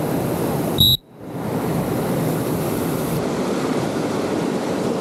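Steady rushing of a fast river current. About a second in, a very short, shrill high-pitched tone sounds, and the water noise then cuts out for a moment and fades back in.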